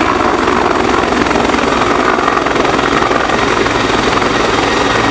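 Border Guard rescue helicopter flying close by: loud, steady rotor and engine noise with a rapid, even beat of the rotor blades.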